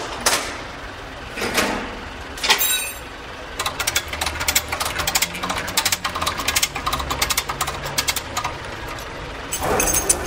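Tow truck with its engine running low underneath. In the first few seconds there are a few short whooshes and a ringing metal clank. From about three and a half seconds in to near the end comes a fast mechanical rattling of rapid clicks.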